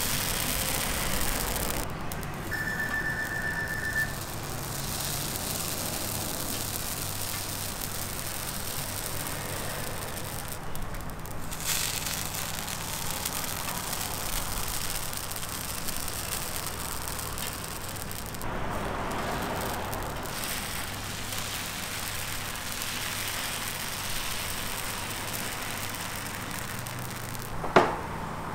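Crepe batter sizzling on a hot round crepe griddle as thin lines are piped onto it: a steady crackling hiss. A brief high tone sounds about two and a half seconds in, and there is a single sharp tap near the end.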